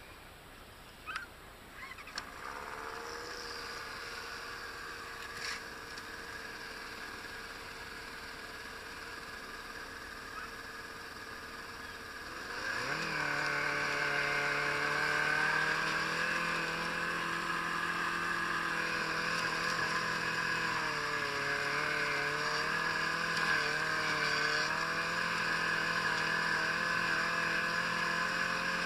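Yamaha Apex RTX snowmobile's four-cylinder four-stroke engine idles from about two seconds in. About twelve seconds in it revs up and runs steadily under way, its pitch wavering with the throttle.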